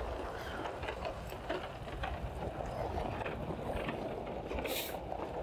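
Pickup truck towing a trailer along a gravel road: a steady engine and tyre rumble with scattered clicks and rattles from the trailer and its load.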